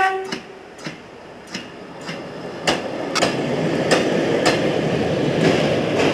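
Diesel railbus passing close by: the end of its horn blast at the very start, then its wheels clicking over the rail joints in evenly spaced pairs, with the running noise of the train growing louder over the first three seconds.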